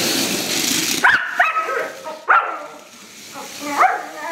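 Rough collie barking at a radio-controlled toy car: about four short, sharp barks at uneven intervals, the first two close together. A steady rushing noise comes before them, through about the first second.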